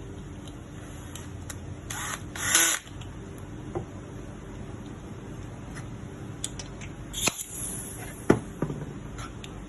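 Handling noises from small parts being worked on: two short hissing bursts, the louder about two seconds in and the other about seven seconds in, then a few sharp clicks, over a steady low hum.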